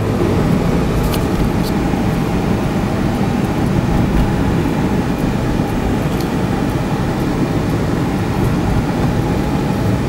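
Steady road and engine noise heard from inside a moving car, an even, dense noise with a few faint ticks.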